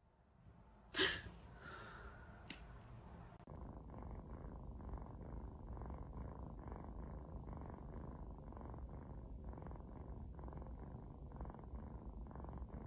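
A short sharp sound about a second in, then, from about three and a half seconds in, a small kitten purring steadily and faintly.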